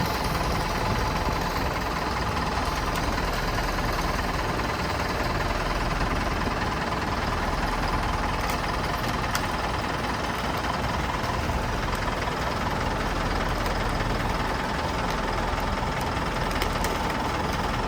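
Diesel engine of heavy equipment running steadily at idle.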